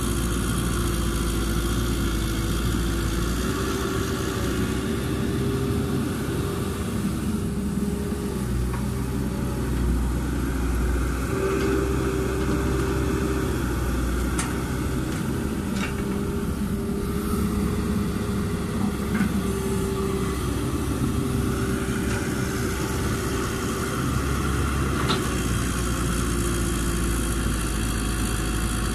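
Caterpillar 312B hydraulic excavator's diesel engine running under load through a dig, swing and dump cycle, its pitch dipping and recovering as the hydraulics work. A few sharp knocks stand out over the engine.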